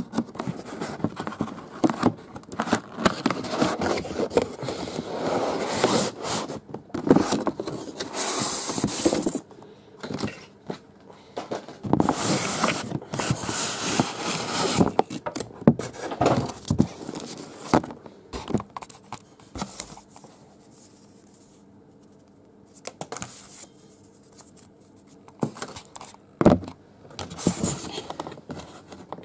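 Cardboard model-train box being opened and unpacked by hand: scraping and rustling of card and paper instruction leaflets, with scattered sharp clicks and knocks. It goes quieter for a few seconds about two-thirds of the way through.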